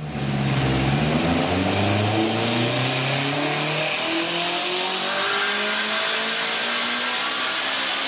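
Turbocharged Honda S2000's four-cylinder engine on a chassis dyno, revving steadily higher in one long continuous pull.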